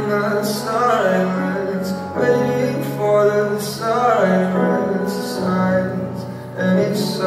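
Slow recorded song: a male voice singing a melody over sustained low chords.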